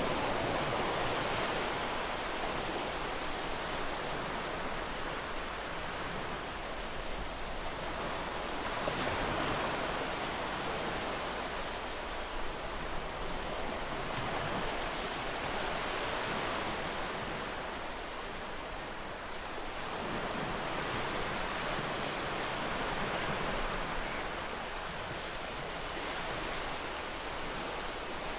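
Ocean surf washing against a shore: a continuous rush of breaking water that swells and eases in slow surges every several seconds.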